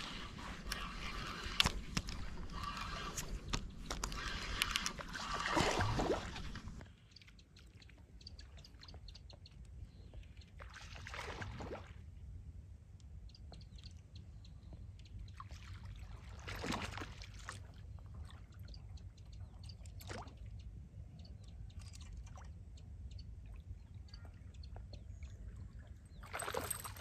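Water splashing at a pond's surface in a few separate short bursts, several seconds apart. Over the first seven seconds a louder steady noise sits under it and then cuts off abruptly.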